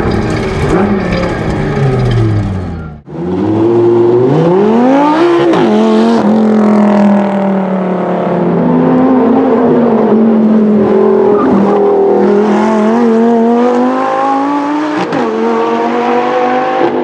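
Lamborghini Gallardo LP 570-4 Super Trofeo's naturally aspirated 5.2-litre V10, heard from inside the cabin with the revs falling. After a cut about three seconds in it is heard from trackside, revving hard through two quick upshifts of the E-gear six-speed, then holding high revs with the pitch wavering, and shifting again near the end.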